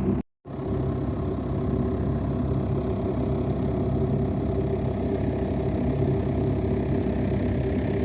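Car engine running steadily, a continuous low drone with road noise, dropping out briefly just after the start.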